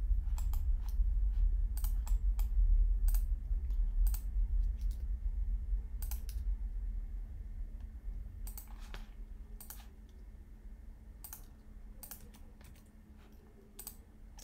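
Computer keyboard keys and mouse buttons clicking at scattered, irregular moments while a 3D rig is posed by shortcut and mouse, over a low rumble that fades through the second half.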